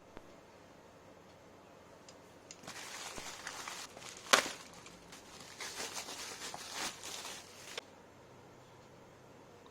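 Faint rustling and handling of a phone's retail box and packaging, with one sharp click about four seconds in.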